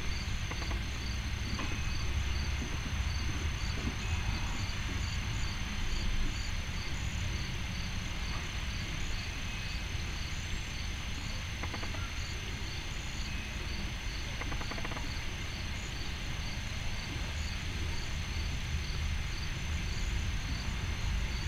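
Crickets chirping in a steady, even pulse of about two chirps a second over a thin, steady high insect trill, with a constant low rumble underneath.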